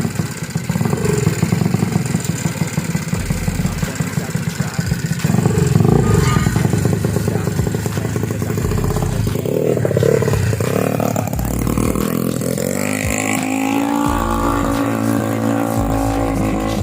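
Yamaha Mio scooter engine, bored up to 200 cc, running and being revved on the bench during tuning. The revs surge unevenly in the middle, then climb steadily over the last few seconds.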